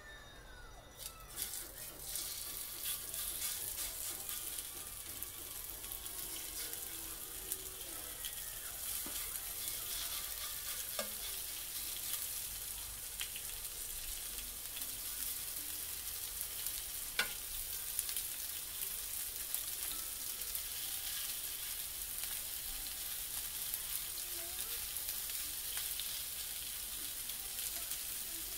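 Thin slices of marinated lamb sizzling on a hot, oiled stovetop grill. The sizzle starts about a second and a half in and then runs steadily, with a single sharp click about halfway through.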